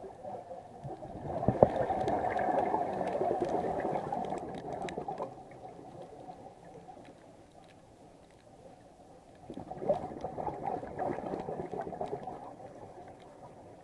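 Scuba regulator exhaust bubbles underwater: two long bursts of bubbling exhaled air, one starting about a second in and one about nine and a half seconds in, with a quieter gap between the breaths.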